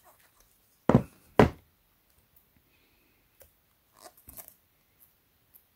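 Handling noise from a phone and its cardboard box being moved in the hands: two dull knocks about half a second apart, then a few faint taps near the end.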